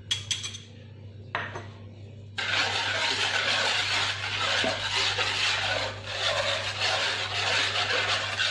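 A wire whisk beating milk and yeast in a wooden bowl: a fast, continuous swishing and scraping that starts suddenly about two and a half seconds in, after a couple of short taps.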